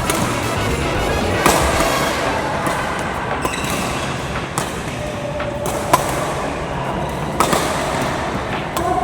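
Background music with a few sharp racket hits on a shuttlecock, the strongest about a second and a half in, about six seconds in and near the end.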